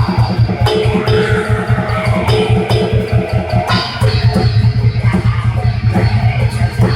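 A black metal band jamming live: distorted electric guitar and bass over a fast, pulsing drum kit.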